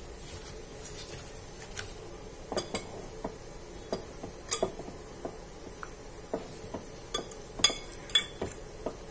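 A metal spoon clinking against a glass bowl as pieces of spiced fish are lifted out, a scatter of separate sharp clinks starting a couple of seconds in.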